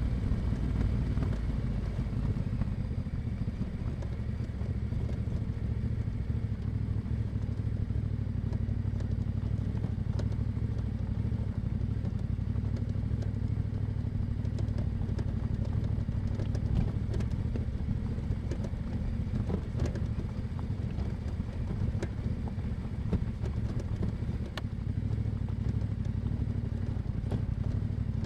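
Yamaha Ténéré 700's 689 cc parallel-twin engine running under way through an Akrapovic exhaust, a steady deep exhaust note as the bike is ridden. Scattered short clicks and knocks sound throughout.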